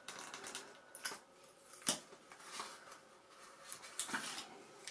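Light handling noise of a servo and its leads being fitted into a foam model-aircraft wing: a few small sharp clicks and taps of plastic parts, the loudest about two seconds in.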